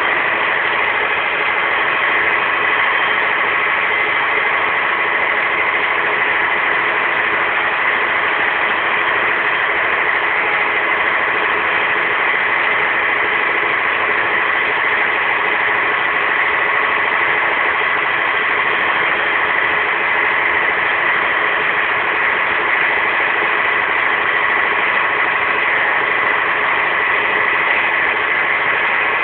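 A motor running at a steady speed: a constant, unchanging drone with a steady high whine in it.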